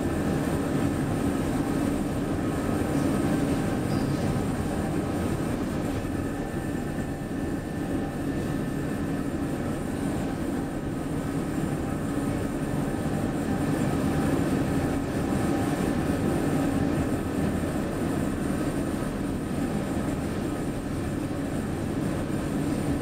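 1997 KONE inclined elevator cab travelling along its inclined track, heard from inside the cab: a steady rumble with faint constant whine tones above it.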